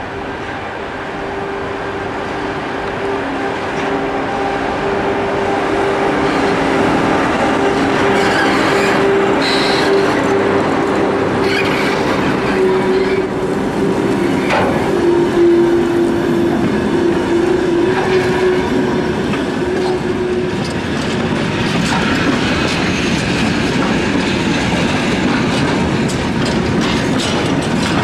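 Electric locomotive and a long freight train of hopper and covered wagons passing close by, growing louder over the first several seconds. A steady whine drops in pitch about halfway through. Then the wagon wheels clatter over the rail joints.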